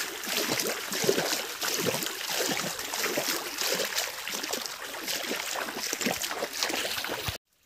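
Shallow stream running, a steady rushing, gurgling water noise with small irregular splashes, cut off suddenly near the end.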